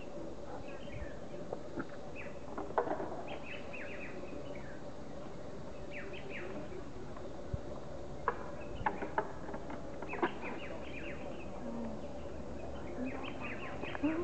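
Short, high, falling chirps in clusters every few seconds, over a steady faint hum, with a few sharp knocks.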